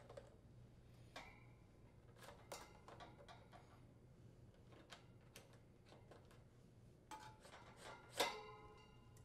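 Faint scattered clicks and rubbing as the condenser fan motor's lead wires and crimp terminals are pulled through a plastic conduit on the metal fan grille cover, with one sharper knock that rings briefly about eight seconds in.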